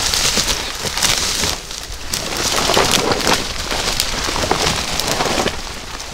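Brushing and walking through dense, dry undergrowth: leaves, twigs and branches scrape and crackle against clothing and gear in a continuous, busy rustle, with many small snaps.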